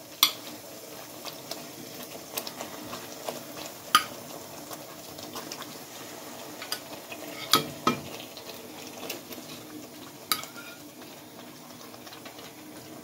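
Metal tongs clinking against a non-stick pot as chicken leg pieces are lowered into simmering masala, over a steady low sizzle. About five sharp clinks, the loudest about 4 and 7.5 seconds in.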